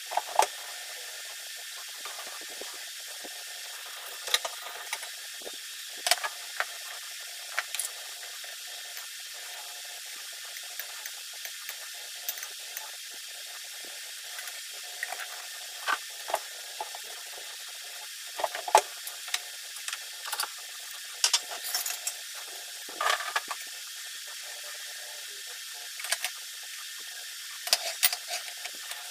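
Scattered clinks and clicks of a metal spoon and kitchen scissors against ceramic bowls on a countertop, uneven and a few seconds apart, as a dipping sauce is stirred and chili is cut, over a steady background hiss.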